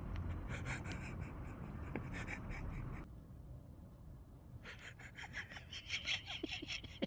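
A whippet panting in quick, even breaths. The panting stops suddenly about three seconds in and resumes after a second or so.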